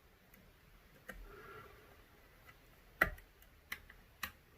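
Pick and tension wrench clicking inside a Chubb 5-lever mortice lock as its levers are lifted and set: a handful of separate sharp clicks, the loudest about three seconds in.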